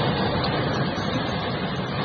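Steady rushing noise of blizzard wind and a moving vehicle, heard from inside the cabin.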